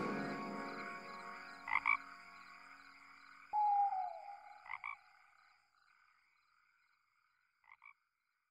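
Music fading out, then frog calls: a short double croak repeating about every three seconds. A single falling tone sounds midway.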